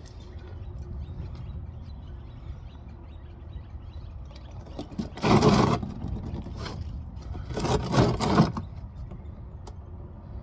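Scraping and small clattering of hands and metal working at a car's spin-on oil filter from underneath, with two louder rasping scrapes about five and eight seconds in.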